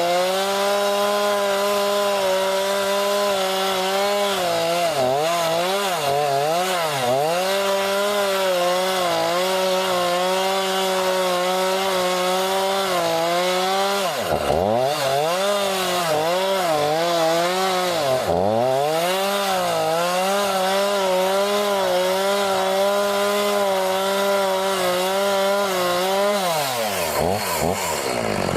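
Homelite two-stroke chainsaw running at high revs while cutting through thick old boxwood trunks. Its pitch dips sharply and recovers several times as the chain loads up in the wood, then drops away near the end.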